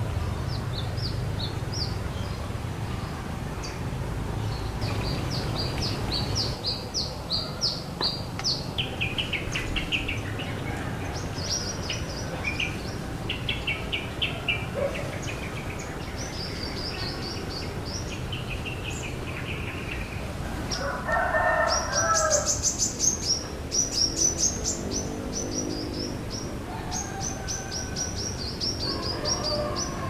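Small birds chirping in quick high-pitched runs throughout, with a rooster crowing once a little past two-thirds of the way through, followed by some lower calls.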